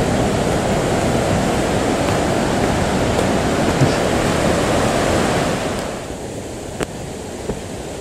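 Mountain river rushing over rocks beside the trail, a steady rush of water that drops to a quieter hiss about six seconds in.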